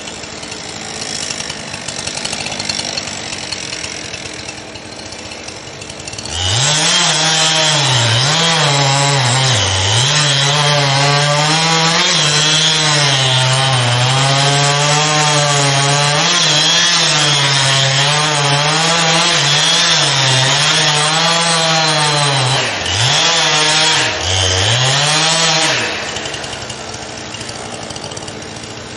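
A chainsaw idles, then revs to full throttle about six seconds in and cuts wood. Its pitch dips and recovers again and again as the chain loads up in the cut. Near the end it eases off twice briefly, then drops back to idle.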